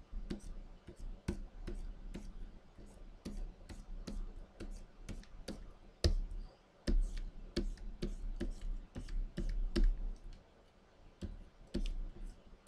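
Irregular clicks and taps, a few a second, of a drawing stylus on a Wacom Cintiq pen display mixed with computer key clicks, over a low hum that comes and goes.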